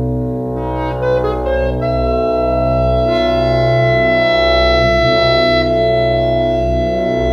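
Bb clarinet and bass clarinet sustaining layered long tones over a steady low drone, blended with live electronic processing. About a second in, a quick run of short higher notes climbs and settles into held high pitches that stack on the sound.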